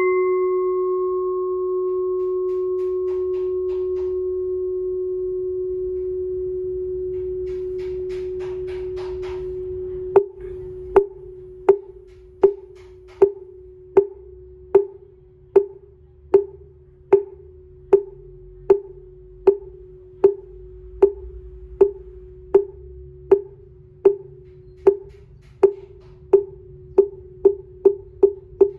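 A 23 cm Buddhist chanting bowl-bell struck once with a padded mallet, ringing in one long, slowly fading tone. About ten seconds in, a lacquered wooden fish (mõ) is knocked with the mallet in a steady beat of a little over one stroke a second, quickening near the end.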